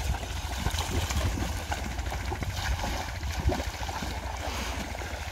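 Feet wading and splashing through shallow muddy water in a flooded rice paddy, a rope dragged through the water alongside, in many small irregular splashes over a steady low rumble.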